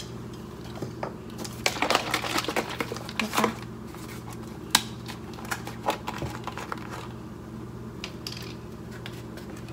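A cardboard almond milk carton being picked up and handled on a kitchen counter: a quick run of light clicks and rustles about two seconds in, then scattered single clicks.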